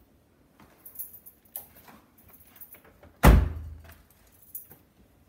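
A car door slammed shut about three seconds in: one heavy thunk. Before it come only faint clicks and rustles as the driver climbs out.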